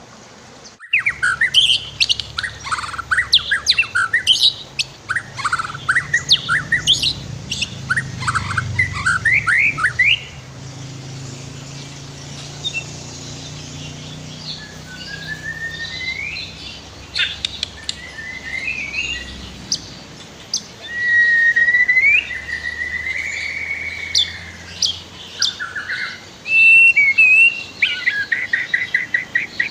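White-rumped shama (murai batu) singing loudly and continuously, starting about a second in: a varied run of rapid chirps, whistled slides and trills, ending in a fast string of repeated notes. A low steady rush runs underneath.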